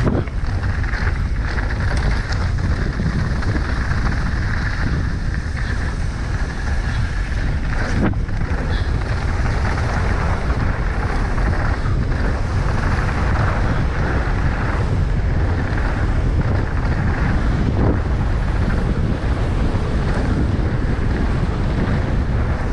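Wind rushing over the microphone with rolling tyre and frame noise from a mountain bike descending a rough dirt trail, with a sharp knock about eight seconds in.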